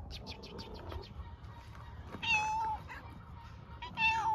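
Stray tabby cat meowing twice, loud half-second meows about two seconds apart, asking for food and attention.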